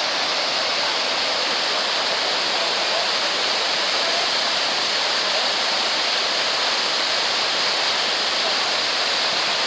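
Water rushing steadily over a river weir and down its spillway chute.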